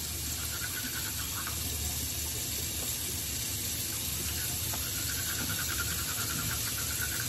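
Water running steadily from a bathroom tap, with a toothbrush scrubbing teeth in quick rhythmic strokes about a second in and again near the end.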